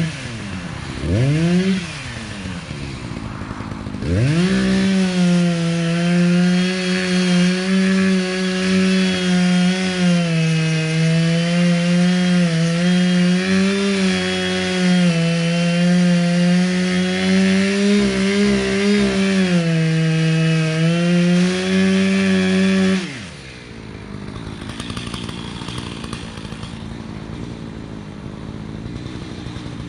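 Echo two-stroke chainsaw revved twice, then held at full throttle while cutting wood for about eighteen seconds, its pitch wavering slightly under load. About twenty-three seconds in it drops back to a much quieter idle.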